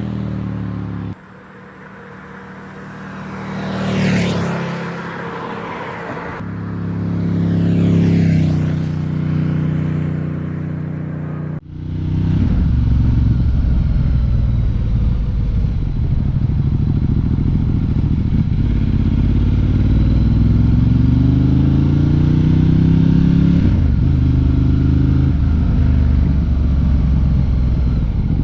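Ducati Diavel 1260 S L-twin engine revving twice, the pitch climbing and falling each time. About twelve seconds in, a cut to a louder, steady run where the pitch climbs for several seconds and then drops, as the bike accelerates and shifts up a gear.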